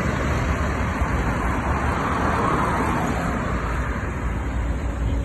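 Road traffic noise: motor vehicle engines running steadily with a low rumble, swelling a little about halfway through.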